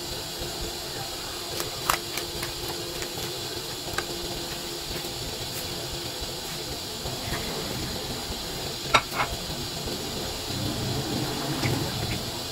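An aluminium pot of broth and napa cabbage heating on a stove, with a steady hiss throughout and a few sharp ticks. Near the end a low bubbling rises as the broth begins to simmer.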